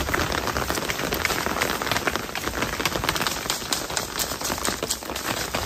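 Steady rain falling on orchard foliage: a constant hiss with many close, crisp drop ticks.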